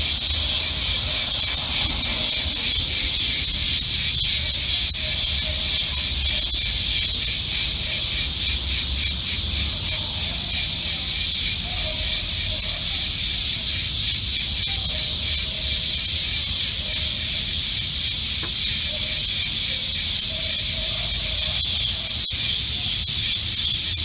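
Cicadas singing in chorus: a loud, steady, high-pitched buzz with a fast pulsing texture.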